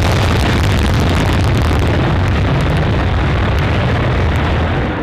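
Dassault Rafale's twin Snecma M88 turbofans in full afterburner during the takeoff roll and liftoff: a loud, steady jet roar with a crackling edge.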